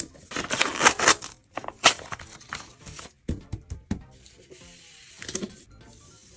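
Clear packing tape being laid and smoothed down by hand over a printed paper sheet: crinkling plastic film and paper rustle in bursts, with a few sharp crackles. The densest crinkling comes in the first second. Soft background music runs faintly underneath.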